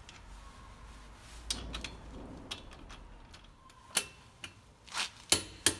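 Torque wrench on the wheel's lug nuts, tightening them to 103 foot-pounds: scattered sharp metallic clicks, several close together near the end.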